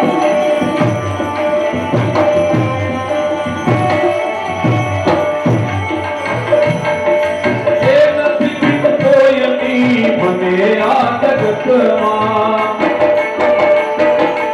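Live bhajan music: tabla drums beating a steady rhythm under held instrumental notes, with a voice singing a gliding melody from about the middle.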